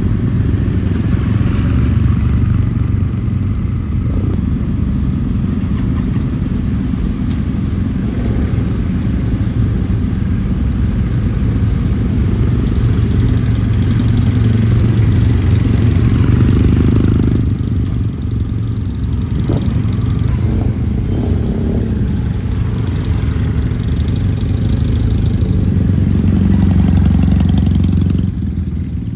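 Kawasaki W-series air-cooled parallel-twin motorcycle engine running, its exhaust note steady with the level rising and falling a few times, then dropping near the end.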